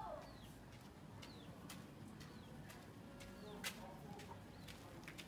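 Faint bird sounds from chickens foraging: a short falling call right at the start, then thin, high, falling chirps about once a second, with a few sharp clicks, the loudest a little before four seconds in.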